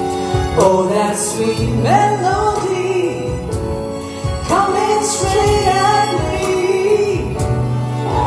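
Live pop ballad: a woman singing melodic phrases into a microphone over band accompaniment with a steady bass line.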